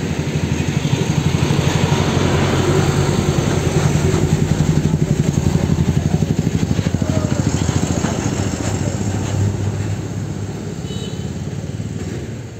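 A vehicle engine idling close by, with a fast, even throb that eases a little near the end.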